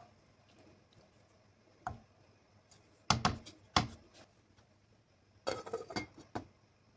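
Kitchenware knocking and clattering: a light tap about two seconds in, two loud knocks a little under a second apart, then a short run of clatters near the end.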